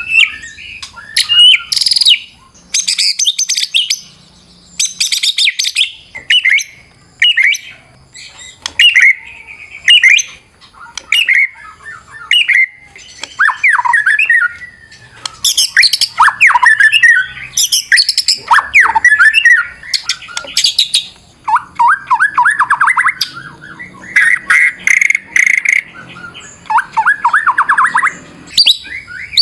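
White-rumped shama (murai batu) singing a loud, varied song: phrases of clear whistles, harsh rasping notes and rapid trills, broken by short pauses.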